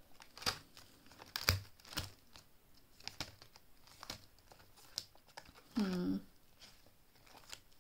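Paper and plastic crinkling and rustling with scattered sharp clicks and taps, as cash-stuffing envelopes and money are handled. A brief hum from a voice about six seconds in.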